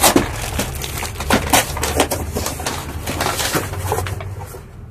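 Clear plastic bag crinkling and rustling as a packaged product is handled, a quick irregular run of crackles that thins out near the end.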